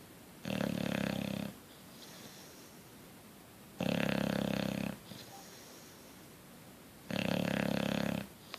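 Bulldog snoring in its sleep: three loud snores, each about a second long, coming roughly every three seconds with a fluttering rattle in each.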